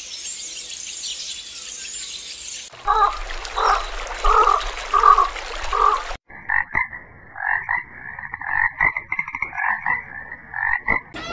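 Frogs croaking: after a couple of seconds of high hiss, about five evenly spaced croaks, then a faster run of short croaking pulses.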